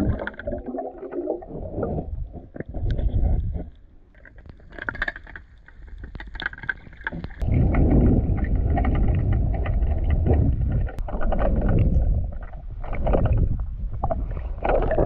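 Muffled rumbling and sloshing of water as swimmers move underwater, heard from below the surface. It dips quieter a few seconds in, then swells again.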